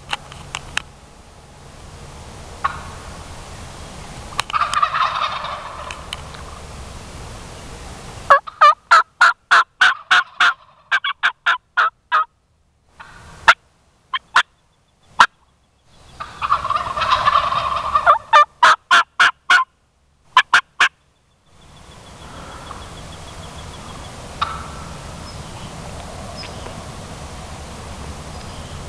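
Wild turkey gobbling twice, each a rattling call about a second long: one about four seconds in and another about sixteen seconds in. Between the gobbles come runs of short, sharp clicks, about three a second, with the sound dropping out completely between them.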